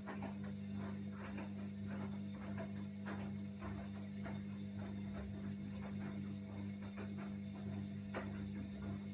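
Washing machine running: a steady motor hum with irregular light clicks and knocks on top.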